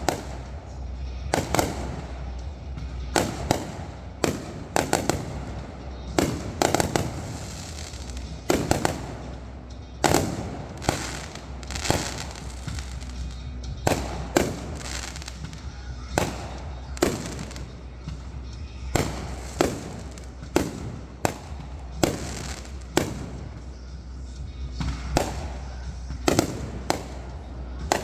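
Fireworks going off in a continuous irregular barrage of bangs, about one to two a second, each with a short echoing tail.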